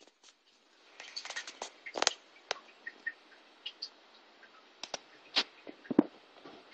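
A dozen or so irregular sharp clicks and taps, loudest about two seconds in and near the end, with a few faint short high peeps in between.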